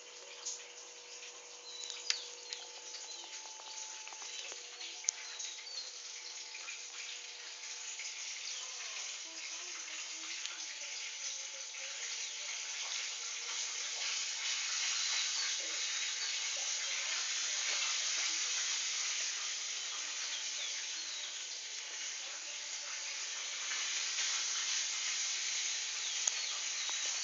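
Steady hissing noise, like running water or sizzling, slowly growing louder, with a few sharp clicks.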